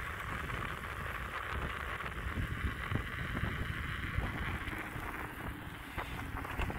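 Mountain bike rolling on wet pavement: a steady hiss from the knobby tyres, with wind rumbling on the microphone.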